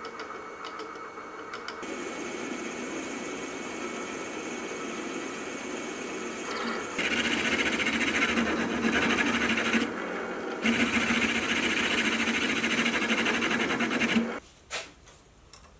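Benchtop milling machine spindle motor running with a steady hum and thin whine, as a centre drill spots the side of the steel tool body. A twist drill then cuts a cross hole for the handle with a louder, gritty cutting noise in two stretches separated by a short peck. It stops abruptly near the end.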